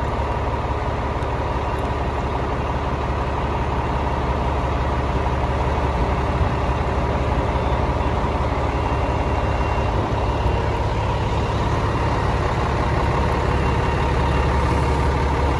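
Fire engine's diesel engine idling steadily, a constant low rumble.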